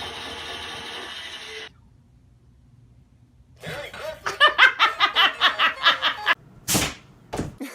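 Laughter in a rapid string of short bursts, about five a second for under three seconds, after a brief lull. A single short, sharp noise follows near the end.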